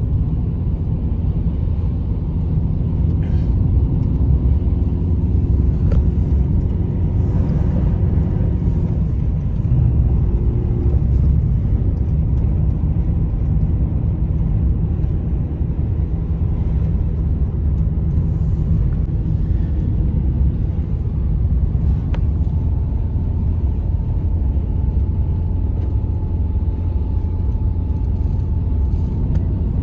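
Steady, loud low rumble with faint steady humming tones over it.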